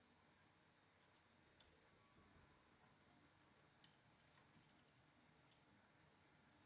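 Near silence with a few faint, sharp clicks scattered irregularly, the sound of small printer parts and tools being handled during assembly.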